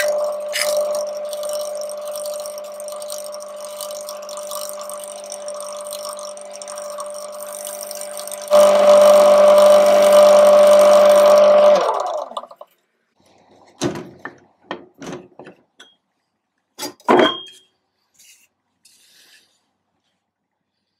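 Wood lathe motor running with a steady hum while a lacewood bowl spins on it. About eight seconds in, a cloth is pressed to the spinning bowl to buff it, adding a louder rubbing hiss. About twelve seconds in the lathe is switched off and winds down, and a few knocks follow as the bowl is handled and taken off.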